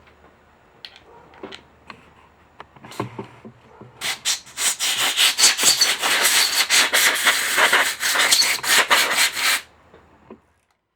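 A few scattered clicks and taps, then about five and a half seconds of rapid, loud scrubbing strokes on a hard surface that stop suddenly, typical of hand-scrubbing or sanding a brake part clean.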